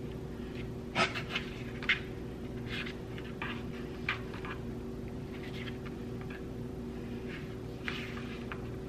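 Knife cutting soft Hawaiian sweet bread into chunks on a plastic cutting mat: scattered soft scrapes and a few sharp taps of the blade on the mat, the sharpest about one and two seconds in, over a steady low hum.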